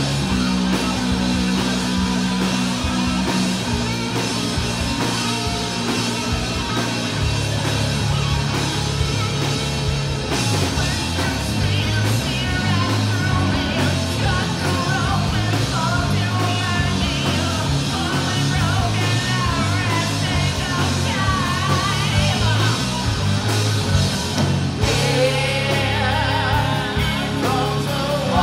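Live rock band playing: electric guitars and drum kit, with women's voices singing lead over them from roughly midway.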